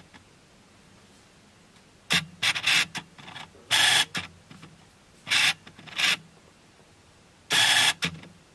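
Autofocus motor of the Canon 200D's default kit lens, which is not an STM lens, running in a string of short noisy bursts from about two seconds in as the focus shifts. The longest bursts come near the middle and near the end. It is the loud autofocus noise of the lens's older focus-motor technology, picked up by the camera's own microphone.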